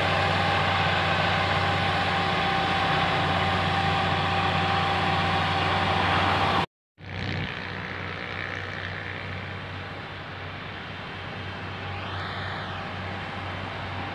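Motor grader's diesel engine running steadily as it drags its scarifier teeth through the dirt, heard close and loud. About halfway there is a sudden brief dropout, after which the engine is heard farther off and quieter.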